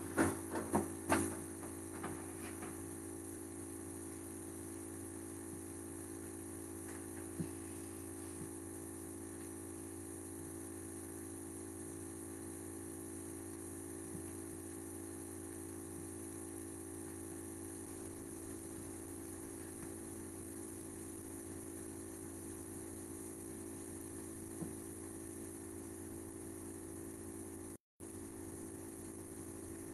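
Steady mechanical hum made of several even tones, from a running kitchen appliance. In the first second or two, heels of ankle boots click sharply on a tile floor a few times, and a few faint single clicks follow later.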